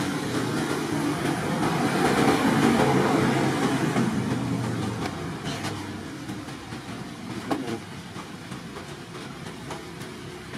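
Background music, with a loud rushing noise that swells over the first few seconds and then fades. There is a single sharp knock a little past the middle.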